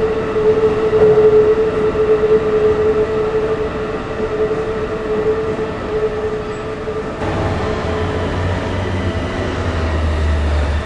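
Keikyu Airport Line electric train running through the crossing. A steady whine carries through the first seven seconds or so, then fades as a low rumble comes in.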